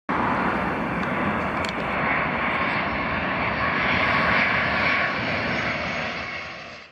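Aircraft engine noise, loud and steady, fading away in the last half second.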